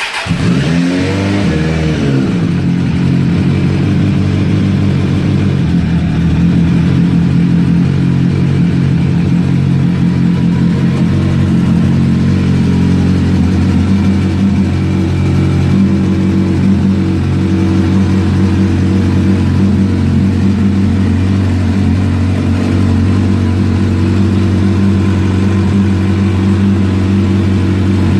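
Suzuki Bandit 600's inline four-cylinder engine just started: its revs rise and fall once in the first two seconds, then it settles into a steady idle.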